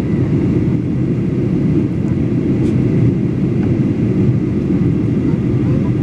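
Steady low roar of a Boeing 737-800 in flight as heard inside the passenger cabin: engine and airflow noise, with a faint steady whine above it.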